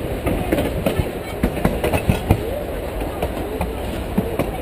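Narrow-gauge railroad passenger car rolling along the track: a steady rumble broken by irregular clacks and knocks from the wheels on the rails.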